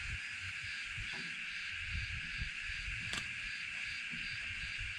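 A steady, unbroken chorus of insects shrilling, with a low rumble of handling noise underneath and a single sharp click about three seconds in.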